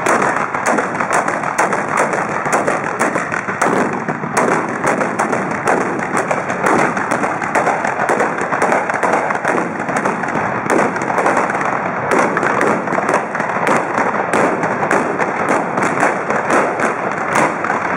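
Trabucs (Catalan blunderbusses) fired with black-powder charges in a continuous barrage of overlapping shots, several a second.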